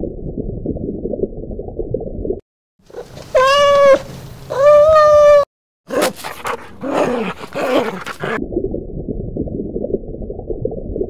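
A dog whining and yelping. About three seconds in there are two drawn-out whines, followed by a quick run of puppy yelps and whimpers. Muffled, low rushing noise comes before and after the calls.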